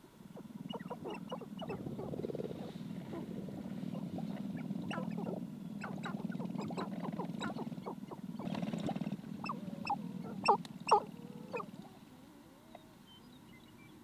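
Sharp-tailed grouse displaying on a lek: a steady low hum with many short, rising clucks and chirps above it. Two louder calls come about ten and eleven seconds in, and the calling fades in the last couple of seconds.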